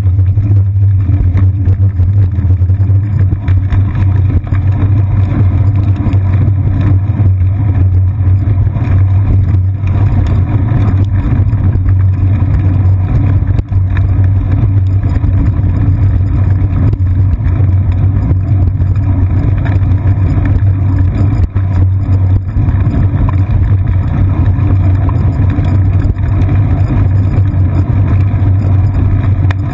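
Loud, steady low rumble of a bicycle riding over pavement, picked up by a camera mounted on its seat post: road vibration and wind noise on the microphone.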